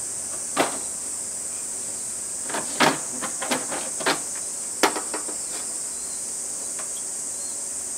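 Cicadas droning steadily in a high, even hiss, with a few sharp clicks and knocks of tableware and chopsticks at the table, the loudest about three and five seconds in.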